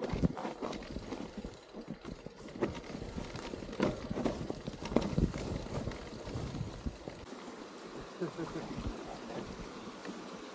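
Mountain bike rolling over a rough, rocky trail: tyres crunching on stones and the bike knocking and rattling at irregular intervals as it hits rocks.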